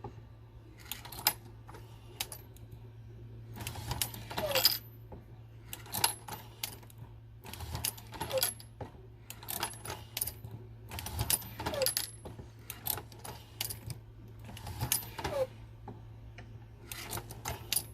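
A Hornady Lock-N-Load AP progressive reloading press being cycled by hand, feeding 9mm brass cases from a case feeder: clusters of metallic clicks and clinks of brass cases dropping and the press indexing, about every two seconds. A steady low hum runs underneath.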